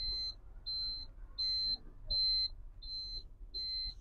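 Electronic beeper sounding over and over, short high beeps of one pitch about 0.7 seconds apart, six in all.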